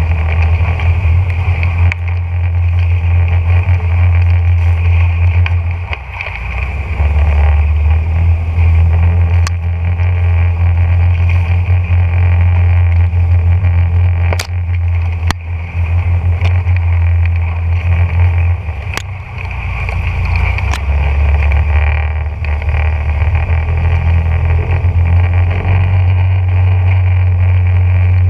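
Boat motor running steadily at speed, a strong low engine hum with water and wind noise, easing off briefly twice, about six and nineteen seconds in. A few sharp ticks sound over it.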